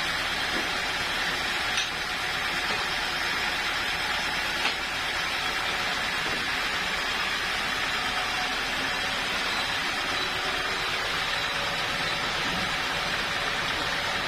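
Sawmill machinery running steadily with an even mechanical hiss, with two short sharp knocks about two and five seconds in.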